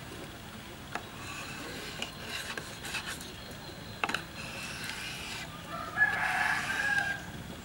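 A kitchen knife slicing fresh red chili peppers into strips on a wooden cutting board, the blade tapping the board about once a second. About six seconds in, a drawn-out bird call over a second long is the loudest sound.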